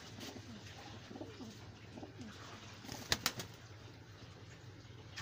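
Domestic pigeons cooing, a low rolling coo about once a second. Two sharp clicks about three seconds in.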